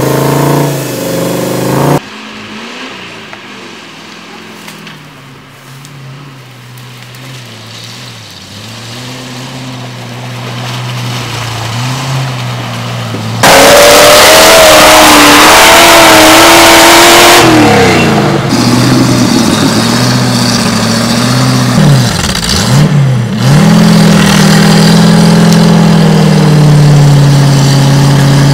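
Engines of mud-covered off-road 4x4 trucks running and revving as they crawl through deep mud, heard in several cut-together shots at different loudness. The loudest part, about halfway in, is a hard rev that rises and falls in pitch for about four seconds.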